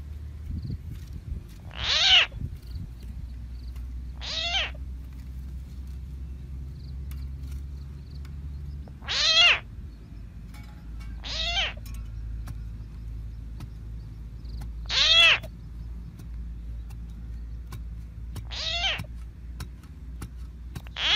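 A cat meowing, a short meow every two to four seconds, about seven in all.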